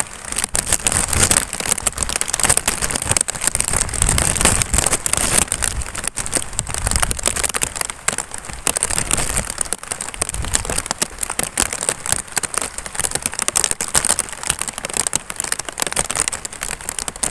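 Heavy rain falling on open water and close around the microphone: a dense, crackling hiss of countless drops at a steady level. Low rumbles swell a few times, around 4, 7 and 10 seconds in.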